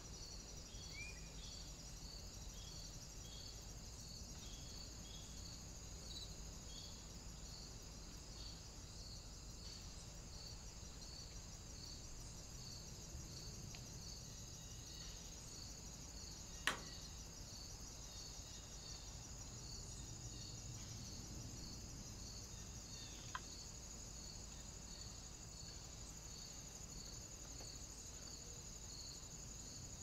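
Faint insects chirring: a regular high chirp about every two-thirds of a second over a steady high hiss. A sharp click breaks in once past the middle, with a fainter one later.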